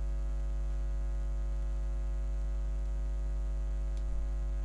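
Steady electrical mains hum with many evenly spaced overtones, picked up on the recording line. A faint click comes about four seconds in.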